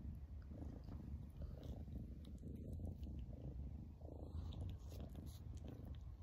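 Kitten purring: a steady, low, pulsing rumble.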